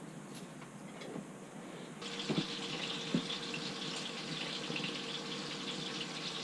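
Steady hiss in a small room with a faint steady hum, growing louder about two seconds in. Two light knocks come a little under a second apart soon after.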